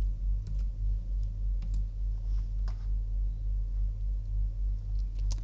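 A few scattered computer keyboard keystrokes and mouse clicks while a search word is typed, over a steady low hum that is louder than the clicks.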